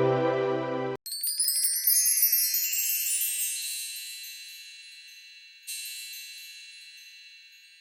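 Background music cuts off about a second in, followed by a high, shimmering chime flourish that rings and slowly fades, with a second, softer chime strike near the six-second mark.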